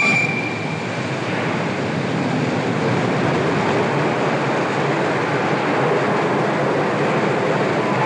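Steelworks rail train hauling hot-metal ladle cars, a steady rumble of wheels on track. A whistle tone dies away about a second in.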